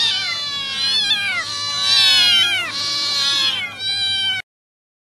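Several domestic cats meowing over one another in many overlapping, rising and falling calls. The sound cuts off abruptly a little over four seconds in.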